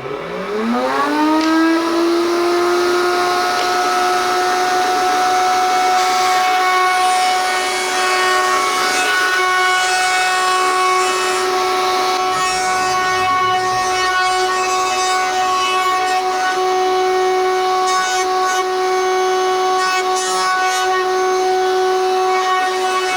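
Electric router spinning up, its whine rising in pitch over about two seconds and then running at a steady high speed while a small bevel is cut on an edge.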